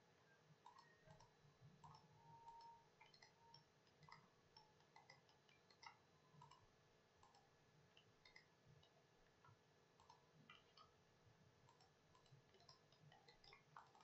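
Near silence with faint, irregular computer mouse clicks as sketch lines are selected and trimmed.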